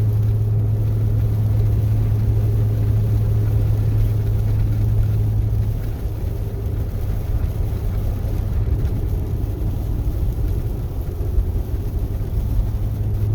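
Inside the cab of a Chevrolet pickup with an 8.1-litre Vortec big-block V8, driving along: a steady low engine drone over road noise. About six seconds in, the drone drops away and the rougher rumble continues.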